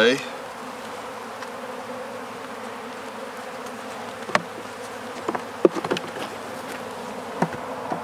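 Honeybees buzzing steadily around an opened hive. From about four seconds in come a few sharp wooden knocks and clicks as frames are pried loose and lifted out of the wooden hive box.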